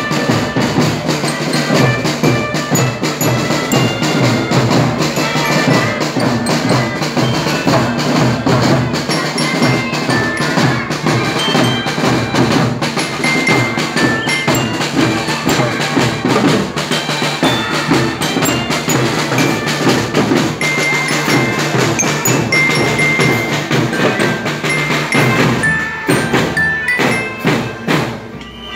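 Children's drum band playing: a glockenspiel melody of short bright notes over snare and bass drums, thinning out and dropping in level near the end.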